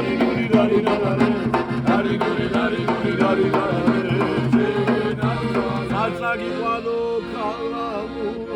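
Background music: an upbeat Turkish pop song in an instrumental stretch, with a steady drum beat and a wavering lead melody line toward the end.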